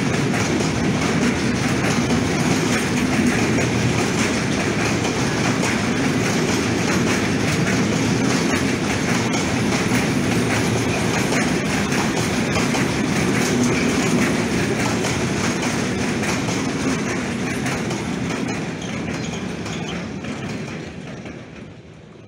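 Long freight train of container wagons rolling past at speed: a steady noise of steel wheels on the rails, fading away over the last couple of seconds as the tail end passes.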